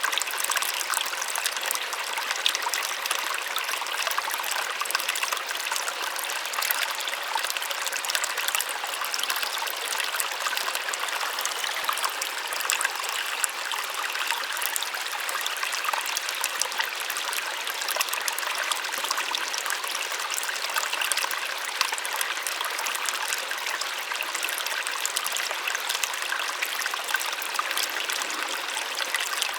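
Small waterfall splashing steadily, water falling and trickling with many fine splashes.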